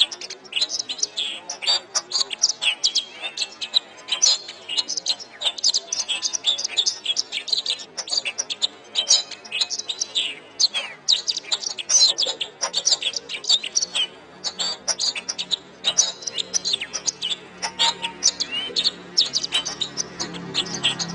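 Domestic canary singing a long, fast, unbroken song of rapid chirps, trills and short whistles. A faint low hum comes in near the end.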